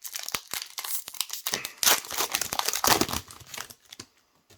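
Foil Pokémon booster pack wrapper being torn open and crinkled, with irregular crackles strongest about two and three seconds in, dying away near the end.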